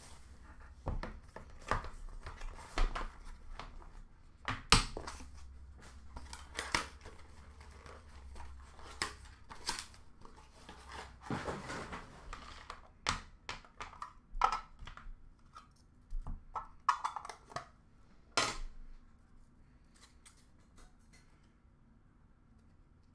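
Hands opening and handling a trading-card box and its packaged items: irregular cardboard and wrapper rustling, tearing and small knocks, thinning out over the last few seconds.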